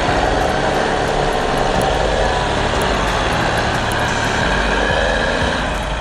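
Heavy vehicle engine running steadily, a loud, even mechanical noise with no clear change in pitch.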